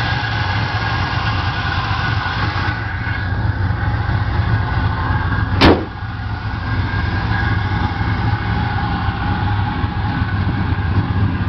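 Chevrolet C10 pickup's 350 small-block V8 idling steadily, with a single sharp knock a little past halfway through.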